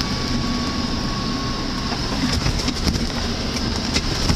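Car driving over lake ice, heard from inside the cabin: steady engine and tyre rumble, with rattles and knocks from the bodywork in the second half.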